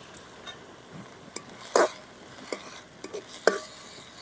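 Steel ladle stirring leafy greens in an aluminium pot, a series of separate scrapes and clinks against the metal, the loudest about two seconds in.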